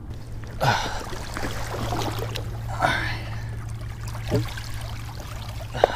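River water moving against shoreline rocks, with scuffs and rustles from stepping down onto the rocky bank. A steady low hum runs under it all.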